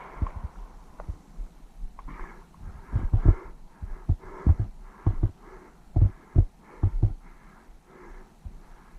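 A player's footsteps thudding about twice a second on the ground, picked up close by the body-worn camera, with hard breathing in between the steps.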